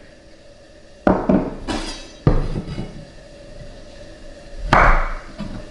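Chef's knife chopping capers on a wooden cutting board: a few separate knocks of the blade against the wood, about a second apart or more.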